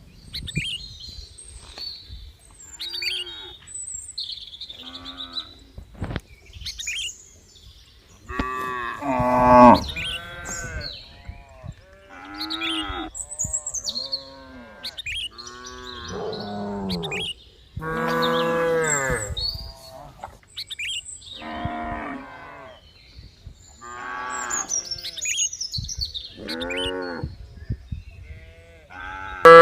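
Several cattle mooing over and over, long calls at different pitches that sometimes overlap, the loudest about a third of the way in. Small birds chirp between the calls.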